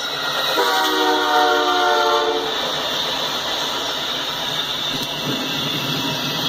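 Norfolk Southern diesel locomotive's air horn sounding one blast of about two seconds for the grade crossing, a chord of several tones starting about half a second in. After it, the steady clatter of the locomotives and intermodal container cars rolling over the rails.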